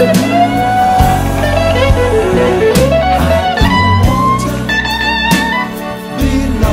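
Background pop song in an instrumental passage: a guitar melody over bass and a steady beat.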